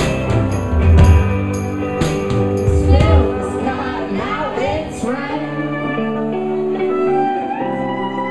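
Live folk band playing, with banjo, fiddle and singing voices. A heavy low beat about once a second carries the first three seconds, then drops out, leaving held, wavering notes.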